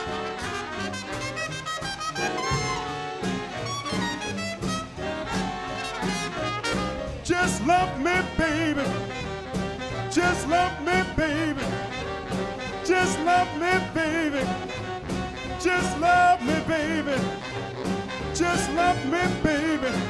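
Swing big band playing live: brass over a steady swing beat on drums, with bending, wavering horn phrases taking the lead from about seven seconds in.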